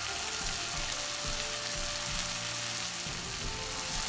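Sliced onions and garlic frying in oil in a wok, with ground spices just added on top: a steady sizzle.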